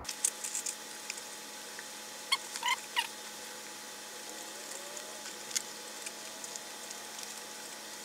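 Rubber squeaking and rubbing as a partly inflated inner tube is pushed into a mountain-bike tyre by hand: a few light clicks at the start, then a cluster of short squeaks between about two and three seconds in, over a steady hiss.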